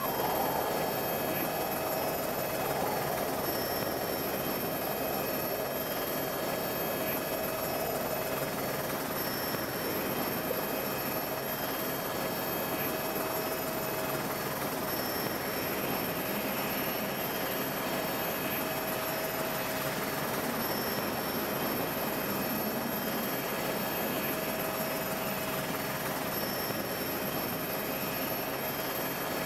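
Steady helicopter engine and rotor noise with a constant whine, unchanging throughout.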